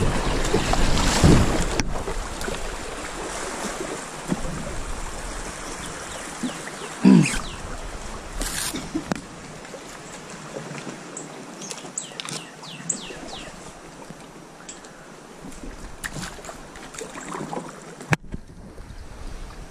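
Water rippling and splashing around a plastic kayak's hull as it is paddled through a shallow creek, with paddle strokes and scrapes of overhanging branches. A dull knock comes about seven seconds in.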